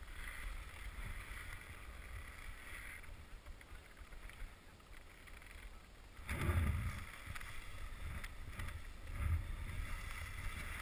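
Skis sliding over snow on a downhill run, with wind rumbling on the helmet camera's microphone. The snow hiss and rumble get louder about six seconds in and again near the end.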